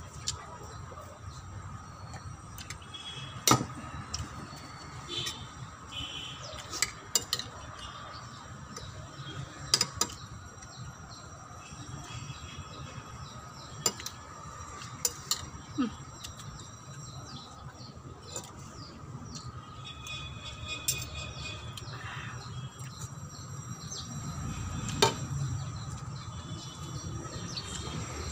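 Person eating rice and sardines by hand: scattered sharp clicks of chewing and lip-smacking, with an occasional knock of a glass or dish on the table. Faint chirping and a steady hum sit underneath.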